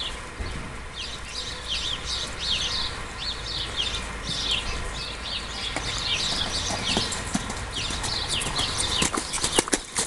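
Cremello Quarter Horse colt cantering under saddle on sandy dirt: soft rhythmic hoofbeats, with a steady run of high falling chirps over them. A few sharp knocks come near the end.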